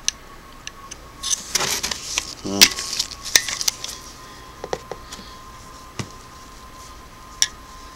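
Handling noise from a Singer PA-style sewing machine motor and a screwdriver being moved about by gloved hands: scattered small metal clicks and taps with some rustling, busiest a second or two in.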